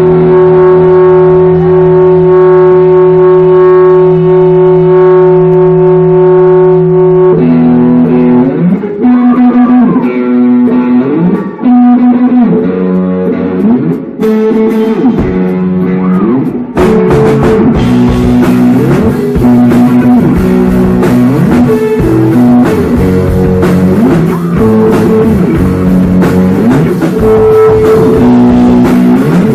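Live rock band playing loud. A chord is held steady for about seven seconds, then electric guitar lines with bending notes take over. About seventeen seconds in the drums come in hard under the full band.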